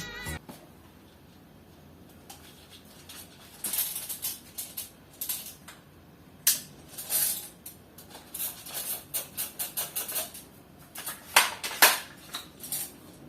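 Irregular clicks, clacks and rattles of hard plastic and metal parts, consistent with an airsoft rifle being handled, with two sharper clacks near the end.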